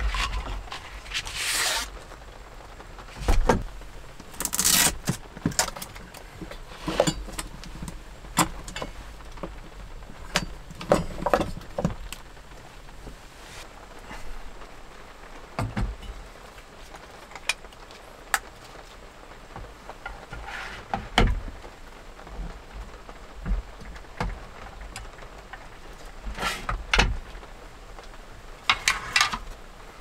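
Light rain falling steadily on the camper, with scattered knocks, clinks and scrapes of cooking gear being handled on a wooden table: a cutting board cleared away and a small gas stove set up and fitted by its hose to a fuel canister. The loudest knocks come about three to five seconds in and again near the end.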